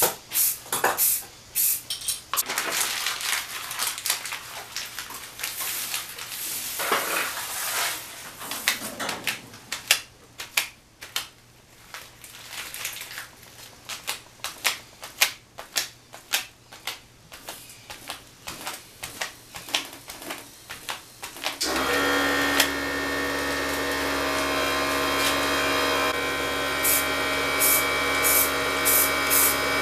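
Short hisses of an aerosol spray-paint can, and many quick taps and crinkles of crumpled paper dabbed onto the wet paint. About two-thirds of the way in, a steady motor-like hum with a whir starts abruptly and keeps going.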